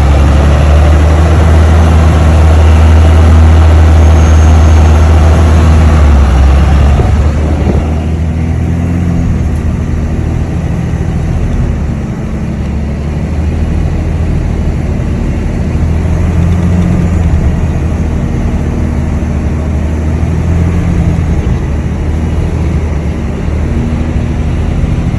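Dodge pickup truck's engine working hard under load in four-high, with tyres churning through deep, soft sand. It is loudest for the first seven seconds or so, then eases slightly and runs on steadily.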